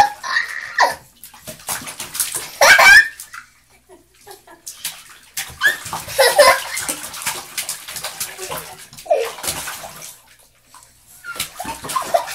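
A baby slapping the water in a plastic baby bathtub, making repeated splashes in bursts with quiet gaps between them. A few short squeals from the baby are mixed in.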